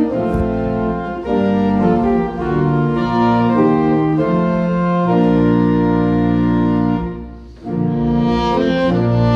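Organ music: slow, sustained chords changing every second or so, with a brief break about seven and a half seconds in before the chords resume.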